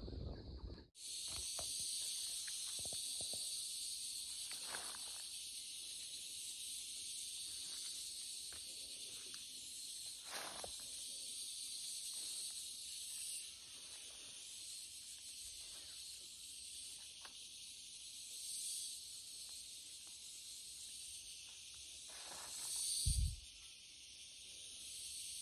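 Steady high-pitched insect chorus droning in woodland, with occasional soft footsteps in dry leaves. There is a single loud thump near the end.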